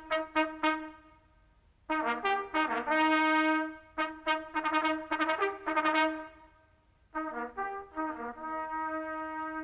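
Background music: a brass melody, trumpet-like, played in phrases of quick notes and held tones, with short pauses between phrases about a second in and about seven seconds in.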